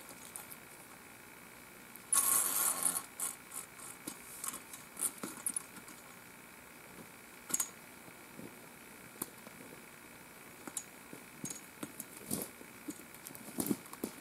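Steel wolf-trap chain rattling in a jangling burst about two seconds in, followed by scattered clicks and short rustles.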